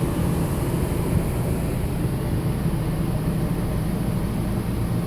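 Steady mechanical hum of an RV's 13,500 BTU rooftop air conditioner running on high, together with an 1100-watt microwave heating on high.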